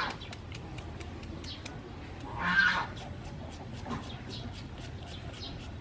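Quick, irregular taps of a knife blade chopping into a cucumber held in the hand, shredding it. A bird calls once, loudly, about two and a half seconds in.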